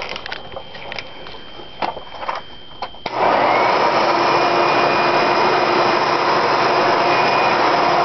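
A few light clicks and knocks, then about three seconds in the 7-amp motor of a Hoover Encore Supreme upright vacuum switches on abruptly and runs steadily with a whine.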